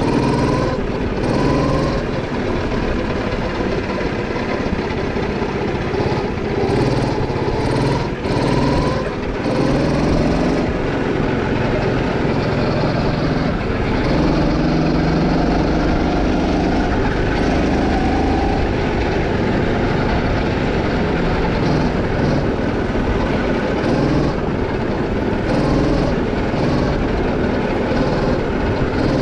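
Go-kart engine running as the kart is driven around the track, its pitch rising and falling with the throttle through the corners, heard from the driver's seat.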